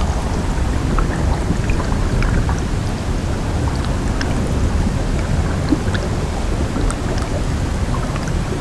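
Glacier meltwater recorded close up: a dense, steady low rumble of running water with many small pops and crackles scattered through it.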